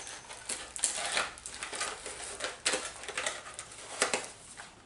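Product packaging being handled: irregular crinkling and sharp clicks of plastic and cardboard.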